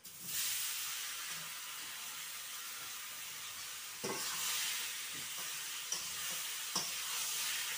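Mango pieces sizzling in hot oil in a wok, starting as they are tipped in, a steady hiss. A spatula stirs them, knocking against the pan about four seconds in and again near the end.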